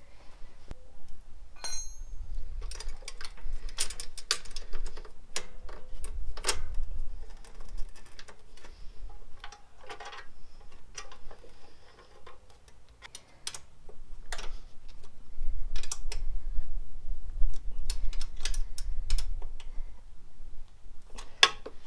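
Irregular clicks, taps and small knocks of hand tools and a bolt being fitted and fastened down, with low bumps of handling.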